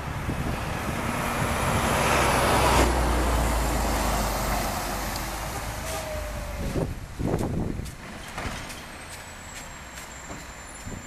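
A heavy road vehicle passing close by on a street: low engine rumble and tyre noise swell to a peak two to three seconds in, then fade away. A short falling squeal comes about six seconds in.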